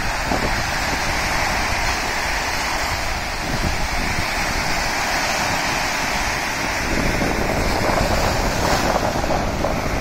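Stormy reservoir waves breaking and washing onto the shore in a strong wind, with wind buffeting the microphone in a low rumble. Steady throughout.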